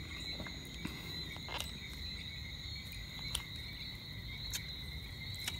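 A steady insect chorus, a continuous high trill, with a few sharp clicks.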